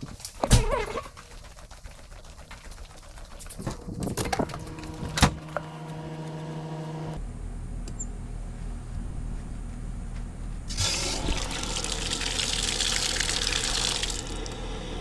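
Water rushing through household plumbing as the supply is turned back on after the valve replacement, with a few sharp knocks in the first five seconds, then a steady hum and a loud hiss of flowing water for about three seconds near the end.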